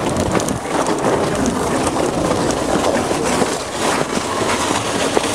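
A ridged plastic sheet used as a sled scraping as it slides down an icy, snowy path: a steady, loud rushing scrape with scattered clicks and knocks.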